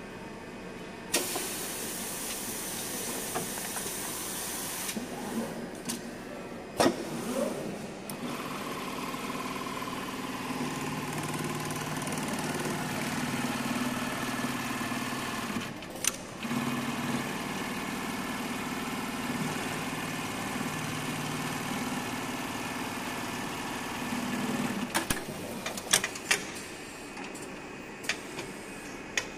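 Automatic patch-pocket sewing machine with a Brother 7300 sewing head working through a cycle. A few seconds of air hiss and sharp pneumatic clacks as the pocket is folded and clamped come first. Then the sewing head runs for about fifteen seconds with a steady hum that shifts pitch a few times, broken once by a clack midway, and more clacks follow near the end.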